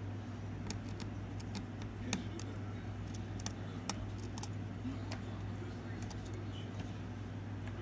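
Scattered light metallic clicks and ticks of a precision Phillips screwdriver and tiny screws while the screws are taken out of an iPhone 5C's internal plate, over a steady low hum.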